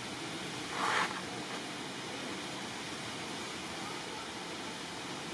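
Steady outdoor background hiss, with a short sharp noisy sound about a second in.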